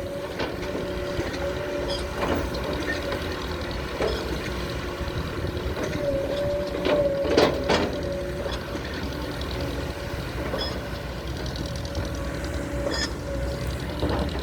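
SANY SY200C hydraulic excavator working: a steady low engine rumble under a constant whining tone, with a few sharp knocks.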